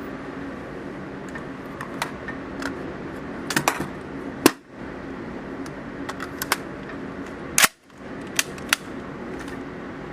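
Scattered sharp gunshot cracks and clicks at an indoor shooting range, over a steady ventilation hum. Two loud shots, about four and a half and seven and a half seconds in, each make the sound drop out briefly.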